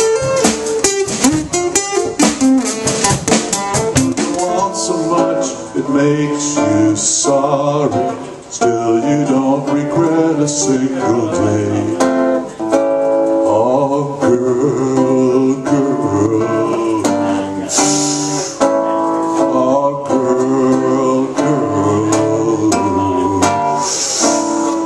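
Acoustic guitar strummed with a man singing live into a microphone. The first few seconds are hard, rhythmic strumming with no voice; then the sung verse comes in over the chords.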